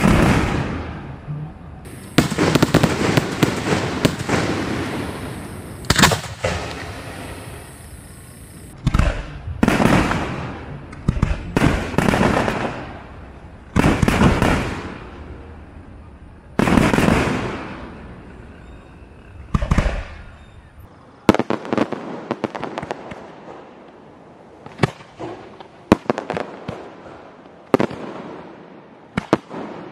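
Aerial firework shells bursting overhead one after another, each bang trailing off in a fading rumble. In the last third come quicker runs of sharp cracks and pops.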